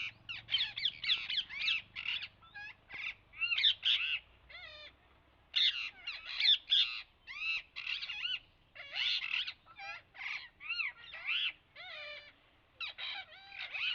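Parrots calling: many short calls in quick succession, each sliding up and down in pitch, with brief pauses between bouts.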